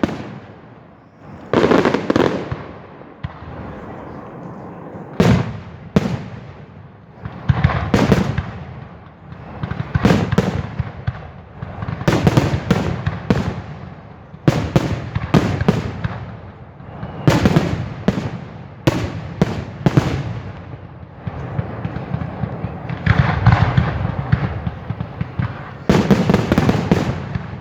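Aerial fireworks exploding: a long run of sharp bangs, some single and some in quick clusters of several, each followed by an echoing rumble and crackle.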